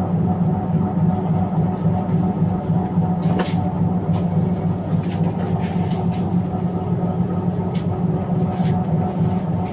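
Tatra T3SU tram running, heard from aboard: a steady rumble and hum with a few steady tones, and several brief sharp clicks, the loudest about three and a half seconds in.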